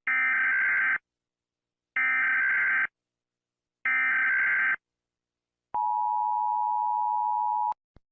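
Emergency Alert System tones: three one-second bursts of SAME digital data tones, then the steady two-tone attention signal for about two seconds, cutting off abruptly.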